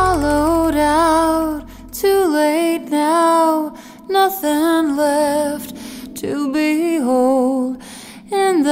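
Song music: a high voice sings wordless held notes with vibrato, in phrases broken by short pauses, over a low accompaniment that drops out about two seconds in.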